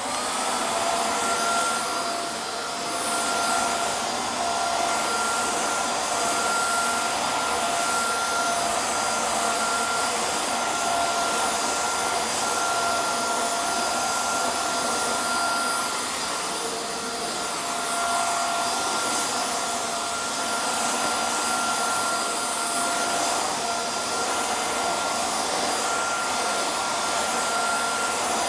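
Vacuum cleaner motor running: its whine climbs to speed in the first moment after switch-on, then holds steady over a rush of air, with the airflow swelling and easing slightly now and then.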